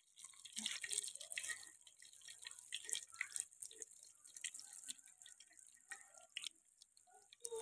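Fish pieces frying in oil in a clay pot: a faint sizzle with many small pops and crackles, and now and then the click of a metal spatula as the pieces are turned.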